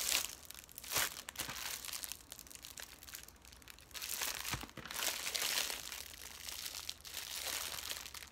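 Diamond painting kit packaging crinkling as it is handled, in several bursts: short ones near the start and about a second in, and a longer stretch about four to six seconds in.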